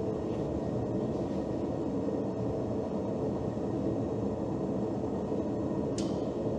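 Steady low mechanical drone, with one short sharp sound about six seconds in.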